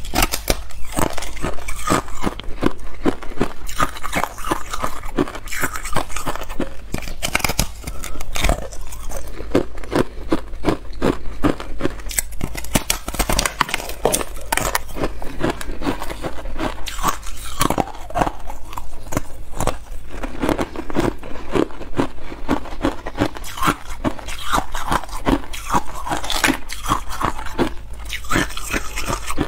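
Thin shells of balloon ice being bitten and crunched in the mouth: a dense, continuous crackling with many sharp snaps a second as the brittle ice breaks.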